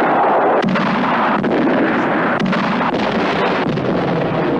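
Film battle sound: a continuous din of exploding artillery shells, with a few sharp gunshots cracking through.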